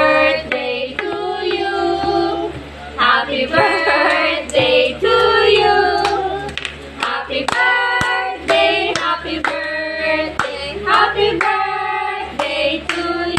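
A small group of women and children singing a birthday song together, with hand clapping joining in through the second half.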